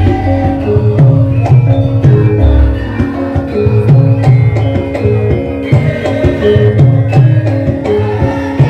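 Live Javanese gamelan accompaniment for a lengger mask dance: hand drums keep a brisk rhythm under repeated short notes from small gongs (bendhe) and other struck pitched instruments.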